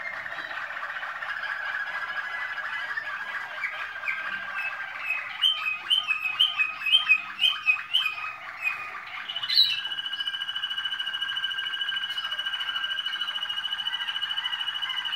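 Malinois Waterslager song canary singing an unbroken song of rapid trills and rolls. Midway it breaks into a run of separate, louder notes, then settles into a long fast roll held on one pitch.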